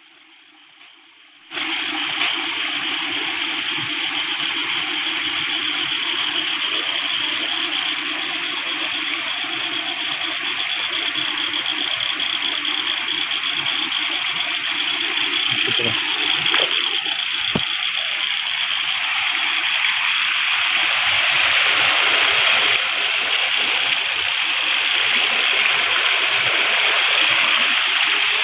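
Water rushing steadily along a narrow channel. It starts suddenly about one and a half seconds in and grows a little louder in the second half.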